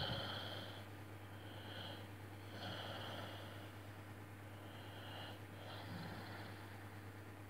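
Faint pencil strokes on paper from a mechanical pencil sketching in short, soft, scratchy bursts, with quiet breathing mixed in, over a steady low hum.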